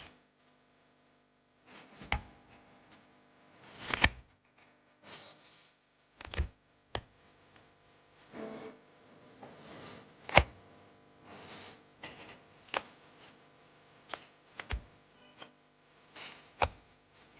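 Stickers and stick-on paper being handled close up: sharp taps and clicks every second or two, with short papery rustles and swishes between them.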